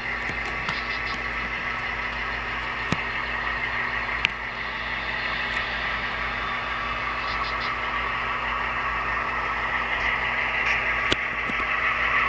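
Model train running on the layout out of sight: a steady whirring hum with a few sharp clicks, slowly getting louder near the end as it draws closer.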